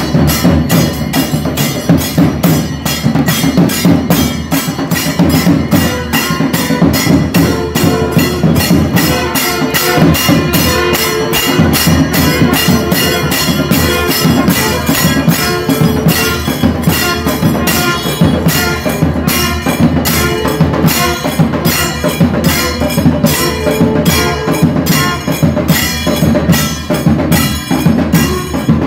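An ensemble of large cylindrical drums, slung from the players' shoulders and beaten with sticks, playing loud, fast, continuous rhythmic drumming.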